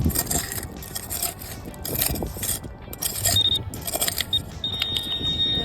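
Metal shovel scraping and cutting into soil in uneven strokes. Near the end a metal-detecting pinpointer's high steady tone sounds, first in short bits and then held, set off by the shovel's metal.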